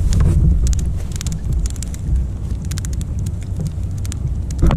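Wind buffeting the microphone with a heavy low rumble, and water slapping against a kayak hull in many small sharp ticks and splashes, with a louder knock at the very end.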